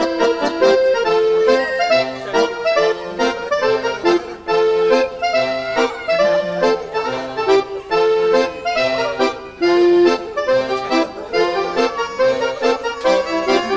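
Instrumental background music: a lively tune of short, quickly stepping notes over a lower moving bass line.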